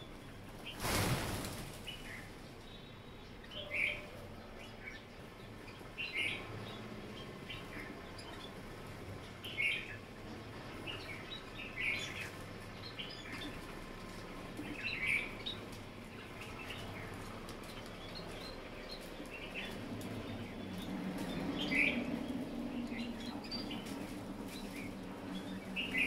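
Small birds at a feeder giving short high chirps every couple of seconds, with a brief rush of wingbeats about a second in as birds flush from the feeding tray. A low hum comes up in the last few seconds.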